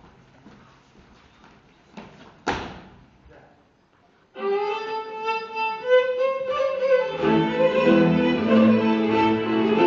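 A live folk string band starts playing about four seconds in: a violin melody first, then the accompanying strings and double bass join about three seconds later. Before the music there are a few faint knocks and one loud sharp knock.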